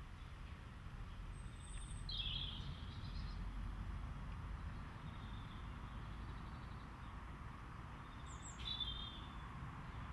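Outdoor ambience: a small bird chirps briefly about two seconds in and again near the end, over a low steady rumble.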